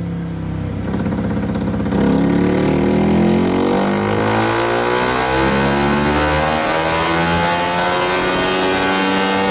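Motorcycle engine on a chassis dynamometer making a power run in one gear. The throttle opens wider about two seconds in, and the engine note then climbs steadily from about 4,000 rpm to over 10,000 rpm.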